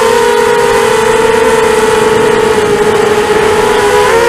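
FPV racing quadcopter's brushless motors and propellers whining, heard loud from the onboard camera. It is a steady high hum that wavers slightly as the throttle and the speeds of the motors shift.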